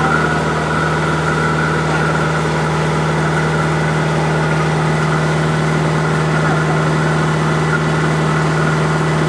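Sightseeing boat's engine running steadily at cruising speed, a constant drone with a strong even hum.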